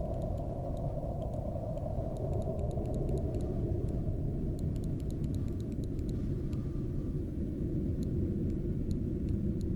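Cold wind blowing steadily with a low rumble, with faint, scattered high crackles of frost and ice in the background.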